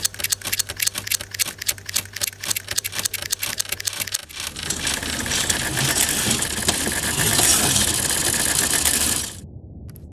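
Machine mechanism clicking rapidly and evenly, several clicks a second, over a steady low hum. About four seconds in it changes abruptly to a louder, dense mechanical whirr, which drops away about nine seconds in.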